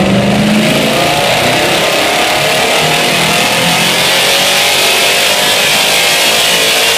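Toyota 1UZ-VVTi 4.0-litre V8 running under load on a chassis dyno through a Borla cat-back exhaust, its revs climbing steadily in a continuous pull.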